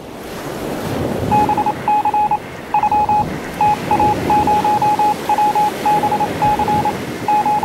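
A single steady beep switched on and off in short and long pulses, like Morse code, starting about a second in. Beneath it a rushing wash like sea or wind swells up at the start.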